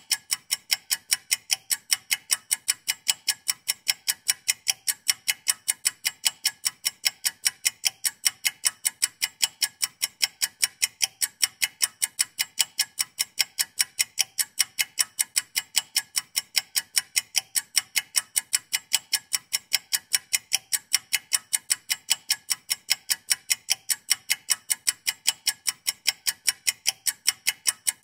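Ticking-clock sound effect running as a countdown timer: fast, even, high-pitched ticks at a steady rate.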